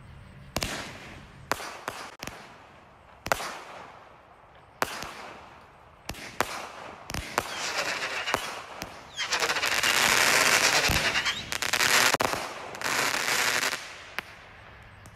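Phantom Fireworks Raging Rottweilers 200g consumer cake firing its shots one after another. Sharp launch shots come first, then from about halfway through long spells of dense crackling stars, loudest a little past the middle, dying away near the end.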